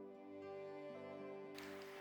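Slow, soft instrumental background music of held notes over a shifting bass line; about one and a half seconds in, a steady hiss comes in under it.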